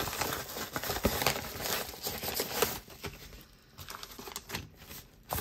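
Crinkling and rustling of a padded paper mailer and thin plastic zip-top bags being handled, made of many small irregular crackles and clicks, with a brief lull about three and a half seconds in.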